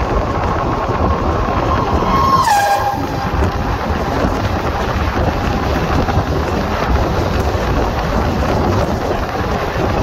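Passing Indian Railways express (the 13006 Amritsar Mail) sounding its locomotive horn, a held tone that drops sharply in pitch about two and a half seconds in as the locomotive goes by on the next track. Under it, the steady rush of the two trains passing each other at speed, heard from an open coach door.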